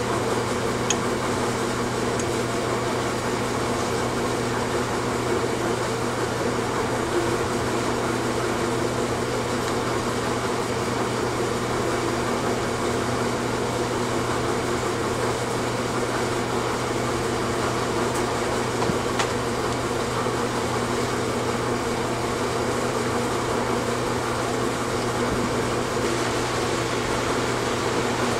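A running fan gives a steady mechanical hum with a rushing sound, and a couple of faint clicks cut through it.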